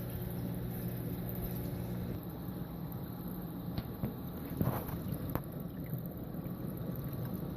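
Water draining through a Deep Blue rimless aquarium's overflow: a steady rushing rumble, with a low hum in it that stops about two seconds in, then a few light clicks and a brief gurgle around the middle.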